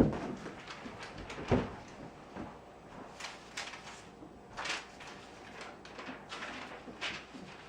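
Household clatter at a dinner table: two louder knocks near the start, then a run of lighter clinks and taps of dishes, cutlery and chairs.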